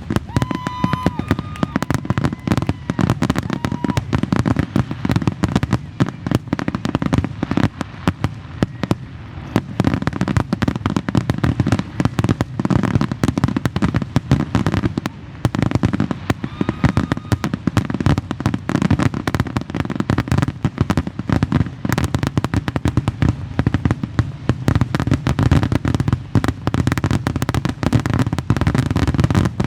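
A fireworks display in a rapid, continuous barrage of bangs and crackles with a deep rumble beneath. A short whistle from a shell rises out of it about a second in, and another comes around the middle.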